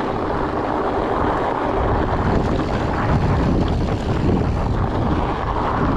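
Wind buffeting the microphone over the steady rolling rumble of a fat bike's 4.8-inch knobby tyres on a dirt singletrack, heard as a continuous low rush.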